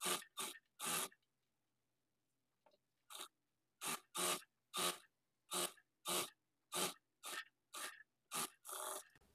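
Fabric being stitched for a sleeve hem: a faint, even run of short rasping strokes, about two a second, with a pause of about two seconds near the start.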